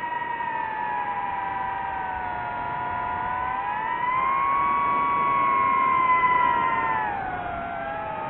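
DJI FPV quadcopter's motors and propellers whining in flight, several close pitches drifting apart and together. About four seconds in the pitch rises and the whine gets louder, then it falls again shortly before the end.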